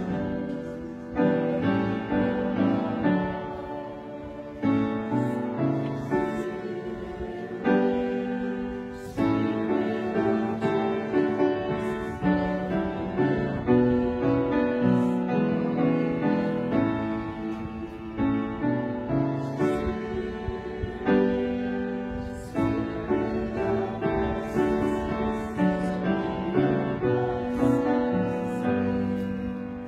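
Piano playing a slow piece: chords struck every second or two and left to ring.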